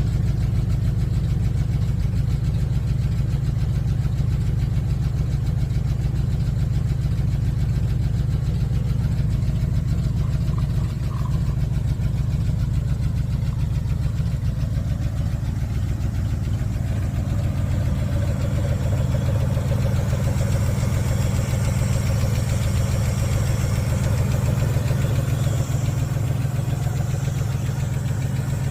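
Dodge D150's 318 V8 idling steadily with a lifter tick: a light, fast ticking over the engine's low, even hum.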